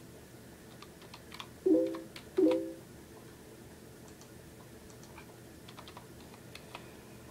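Irregular keystrokes and clicks on a computer keyboard, with two short pitched tones about two seconds in, a little apart, louder than the typing.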